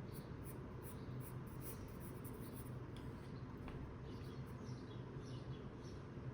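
Pencil scratching on sketchbook paper in quick repeated strokes, dense in the first half and lighter in the second, over a low steady hum.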